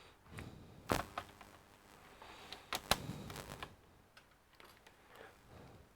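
Light clicks and knocks of a laptop being handled during repair, a few sharp ones with quieter handling noise between; the strongest about a second in and near three seconds in.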